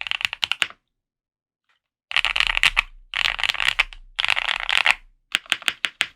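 Typing on a QK75 mechanical keyboard with lubed Gateron Box Ink Black linear switches in a polycarbonate plate, under GMK keycaps. Keystrokes stop for about a second near the start, then come back as three fast, dense flurries of keypresses, followed by spaced single keystrokes near the end.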